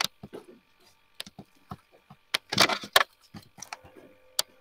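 Irregular sharp clicks and knocks of a computer mouse and keyboard, with a denser clatter a little past halfway through.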